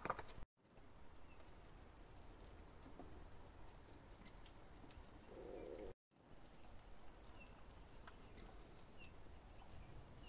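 Near silence: a faint background with scattered small clicks. The sound drops out completely twice for a moment, about half a second in and about six seconds in.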